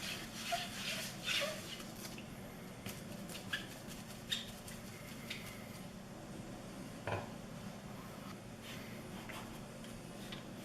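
Quiet handling noises: scattered light clicks and taps with brief rustles, and a clearer knock about seven seconds in.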